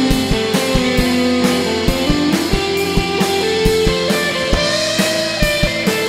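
Live rock band playing an instrumental passage with no singing: an electric guitar lead over a steady drum-kit beat and bass.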